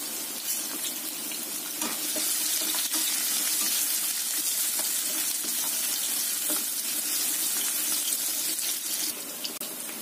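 Chopped shallots, garlic and ginger frying in hot oil: a steady sizzling hiss with small crackles, a little louder from about two seconds in, while a spatula stirs them around the pan.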